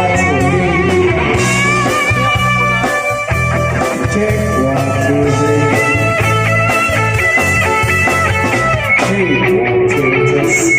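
A band playing rock-blues: an electric guitar lead with wavering, bent notes over steady bass notes and drum hits.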